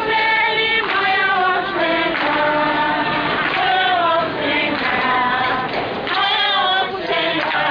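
A group of people singing together without instruments, with women's voices prominent; the notes are held and waver slightly in pitch.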